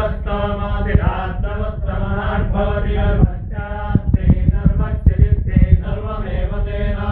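Sanskrit mantra chanting that runs on without a break in the words, with a run of short, dull low knocks from about halfway through.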